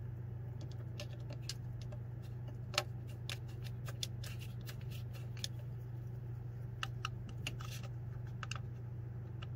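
Light, irregular clicks and taps of small metal parts being handled as the thermostat housing cover and its bolts are fitted by hand, over a steady low hum.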